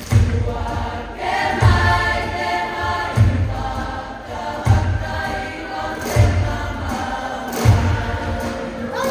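A large group of young women singing together as a choir, holding sustained notes, over a deep, slow drum beat that falls about once every second and a half.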